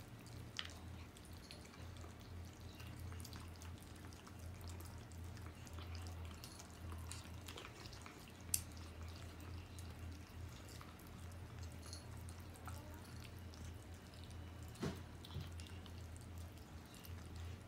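Cats and kittens eating from plastic bowls: scattered soft clicks and smacks of chewing, with one sharper click a little past halfway, over a low steady hum.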